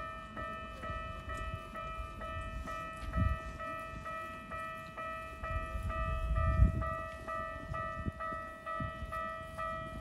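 Japanese railway level-crossing alarm bell ringing with an even, electronic two-tone clang about twice a second, sounding while the barriers are down for an approaching train. A low rumble comes about three seconds in and a louder one around six to seven seconds.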